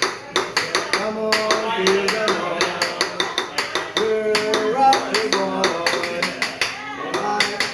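Rapid clacking and tapping of a metal seasoning shaker against the steel teppanyaki griddle and a cup, in a quick, uneven rhythm, with a tune running along under it.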